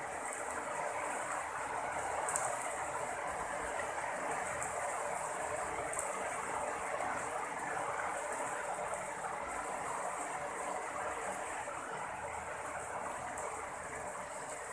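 Steady rain falling, an even hiss, with a few brief ticks.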